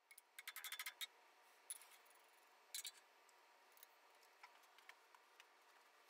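Faint, sharp taps of a light hammer peening rivet ends against steel over an anvil, forming shallow heads on the padlock's back plate: a quick run of about eight taps in the first second, then a single tap and a double tap.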